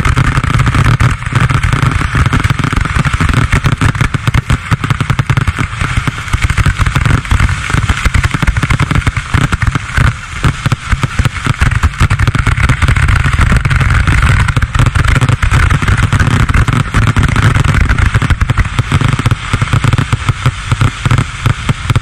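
Fireworks firing from the ground at close range in a rapid, unbroken barrage: dense popping and crackling over a heavy rumble, very loud throughout.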